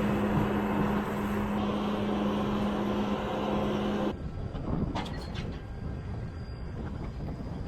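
A vehicle running: a steady engine noise with a constant drone that cuts off abruptly about four seconds in, followed by quieter running noise.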